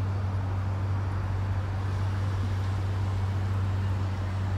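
Steady low drone of motor vehicle noise, with a constant deep hum and no sudden events.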